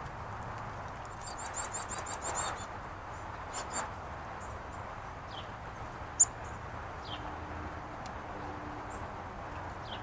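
Small songbirds calling at a feeder: a quick run of high chirps about a second in, a couple more high notes, and a few short falling calls later on. A single sharp click about six seconds in is the loudest sound.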